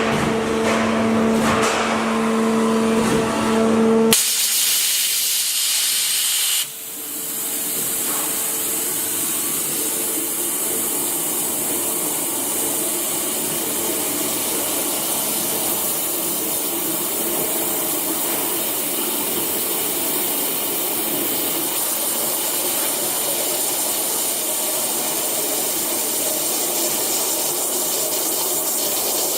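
Waterjet cutting machine: a hum with two steady tones for about four seconds, then a loud, even hiss starts suddenly as the high-pressure water jet comes on. The hiss dips briefly near seven seconds, then runs steadily as the jet cuts through the grindstone.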